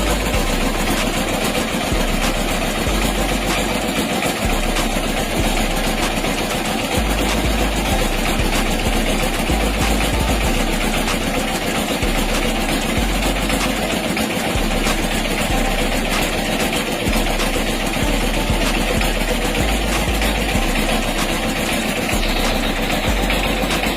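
A steady, loud engine or motor running without a break.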